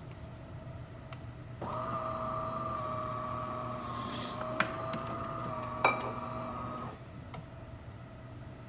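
DeLonghi Magnifica S bean-to-cup espresso machine's internal motor whirring steadily for about five seconds, with two sharp clicks near its end before it cuts off.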